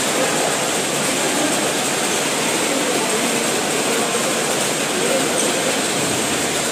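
Steady crowd din in a futsal hall: many spectators' and players' voices blending into one continuous noise.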